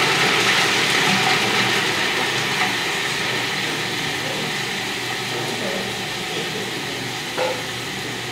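Food processor running steadily, its blade chopping dried coconut and walnuts into coarse crumbs; the noise eases slightly as it runs.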